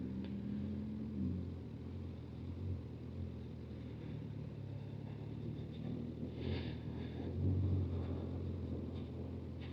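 Honda CB1000F's inline-four engine running at low speed with the throttle feathered, a steady low drone heard from inside the rider's helmet with the visor down. It swells briefly a couple of times.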